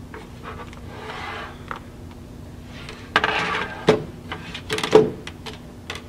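Cables and a small plastic KVM switch being handled: cords rubbing and rustling, with a few sharp clicks and knocks as a USB plug goes into the switch's side port.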